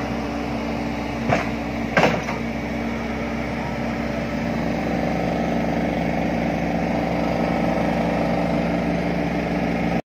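Volvo crawler excavator's diesel engine and hydraulics running steadily, with its vibratory sheet-pile hammer attached. There are two short knocks at about one and two seconds in.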